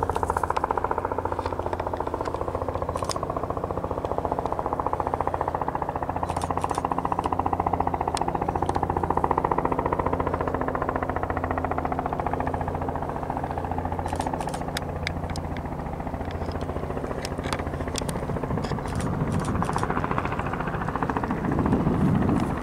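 Light helicopter flying toward the listener: the even beat of its two-bladed main rotor over a steady engine drone, growing louder near the end as it comes closer.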